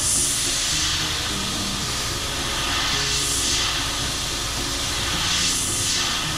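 Airbrush spraying paint: a steady hiss of air and atomised paint from the nozzle, swelling twice as the trigger is drawn further back.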